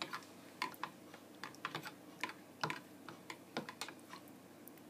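Metal fork tapping and clicking against the inside of a plastic measuring jug while stirring gelatin cubes in hot water to dissolve them: irregular light clicks, two or three a second.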